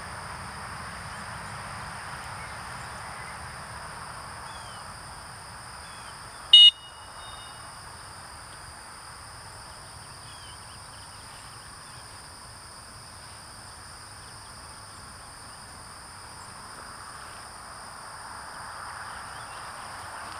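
One short, loud, high-pitched dog-training whistle blast about six and a half seconds in, the stop signal a handler gives a retriever running a blind. Behind it, a steady high insect drone from the field.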